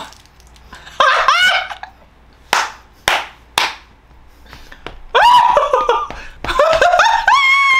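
A woman squealing and laughing while sucking a sour Warheads candy: a rising squeal about a second in, a few short breathy laughs, then a long, high-pitched squeal over the last few seconds.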